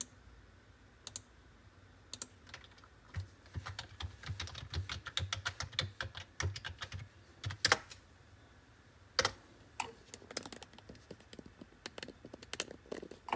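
Typing on a Logitech keyboard: a quick run of keystrokes in the middle, then scattered single clicks.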